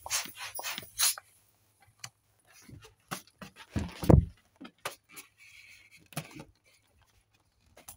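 Inflated latex balloon rubbed and handled close to the microphone: a quick run of rubbery squeaks in the first second, then scattered squeaks and rubs, with a loud low bump about four seconds in.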